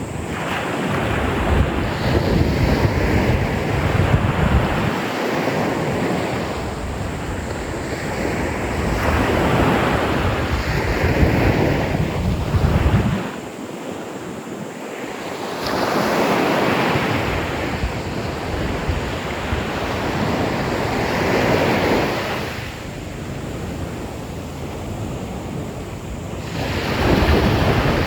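Sea waves breaking and washing up on a beach, coming in slow surges that swell and fade every few seconds, with wind buffeting the microphone.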